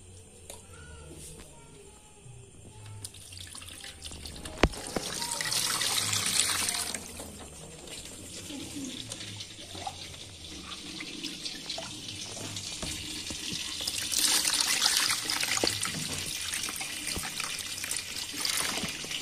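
Water poured from a plastic mug into the tank of a Hindware 38-litre air cooler, in two spells: a short pour about five seconds in and a longer one in the second half. A sharp knock comes just before the first pour.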